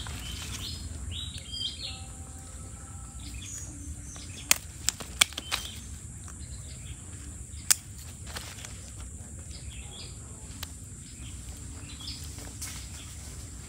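Rural outdoor ambience: faint bird chirps over a steady low rumble, with three sharp clicks in quick succession a little before the middle and a fourth a few seconds later.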